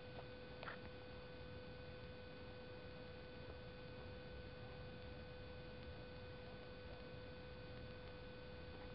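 Near silence: a faint steady hum with a thin, steady high tone, and one faint click less than a second in.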